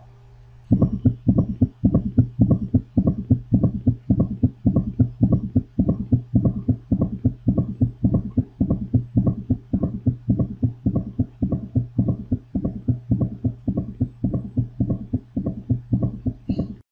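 Recorded heart sounds, as heard through a stethoscope: a fast, even run of low thumps that starts under a second in and cuts off suddenly near the end.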